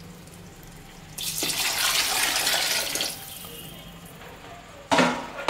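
Water poured into an aluminium pot of thick chicken biryani masala, splashing for about two seconds: the cooking water for the rice being added.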